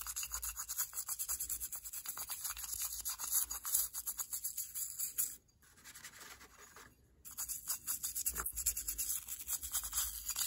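Toothbrush scrubbing the inside of a kerosene-wet Ford flathead distributor housing, in quick, scratchy back-and-forth strokes. The scrubbing stops for about two seconds a little past the middle, then starts again.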